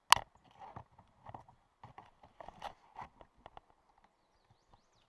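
A sharp knock at the start, then scattered clicks and scuffs of a climber's harness gear (carabiners and rope hardware) and movement on rock. The clicks stop after about three and a half seconds.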